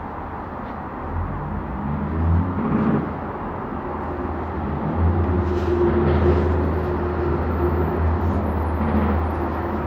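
Bus engine running, a steady low rumble that grows louder about five seconds in, with a hum held over it for a few seconds.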